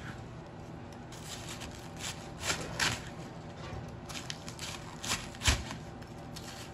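Chef's knife slicing through a head of green cabbage and knocking on a plastic cutting board: irregular cuts and knocks, the loudest a thud about five and a half seconds in.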